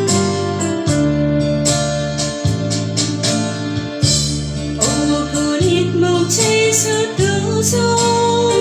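Instrumental hymn intro on an electronic keyboard: sustained organ-like chords over a bass note that changes every second or so.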